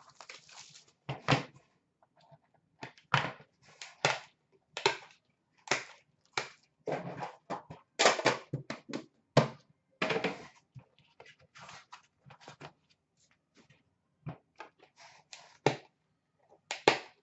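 Hands handling a metal trading-card tin and cards: a string of short rustles, scrapes and clacks as the tin is opened, cards are slid out and set down, and the tin is put back.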